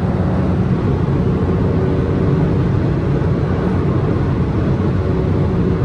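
Porsche 911 Turbo S (992) cruising at motorway speed in Sport Plus mode, heard from inside the cabin: a steady drone from its twin-turbo flat-six engine mixed with tyre and road noise.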